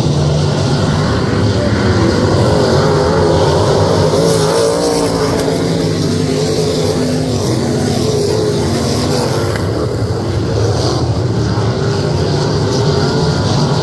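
Open-wheel dirt-track race cars running their engines around the track, the engine note rising and falling. It grows louder and brighter as a car passes close by around the middle.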